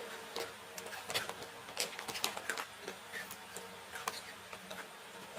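Irregular soft clicks and taps of people eating, a few a second.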